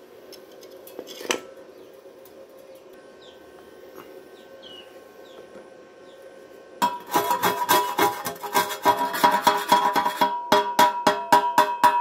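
Low background with a single click about a second in. Then, about seven seconds in, a chipping hammer starts knocking the slag off a fresh weld on a thin galvanized square steel tube. It strikes in quick irregular blows, then settles to about four a second, and the hollow tube rings at the same bell-like pitch with every blow.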